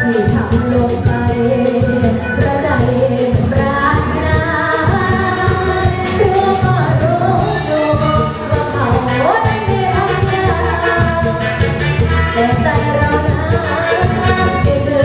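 A woman sings a Thai luk thung song into a microphone, backed by a live band with drum kit, playing through the stage sound system.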